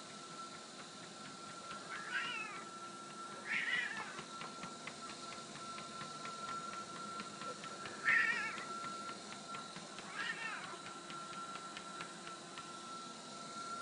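Siamese cat meowing four times, short wavering calls, the third the loudest. Underneath runs a running treadmill's steady whine with a regular light ticking.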